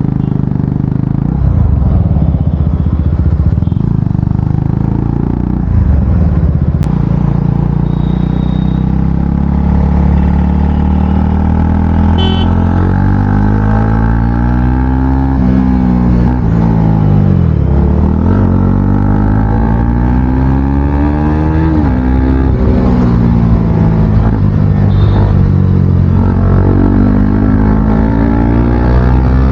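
KTM Duke 250's single-cylinder engine with its exhaust muffler removed, running loud and raw as the bike is ridden. The revs rise and fall with throttle and gear changes, dropping low about seventeen seconds in before climbing again.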